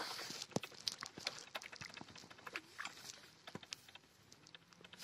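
Faint rustling of dry reed stems with scattered light clicks and crackles as a hooked fish is drawn in through the reeds.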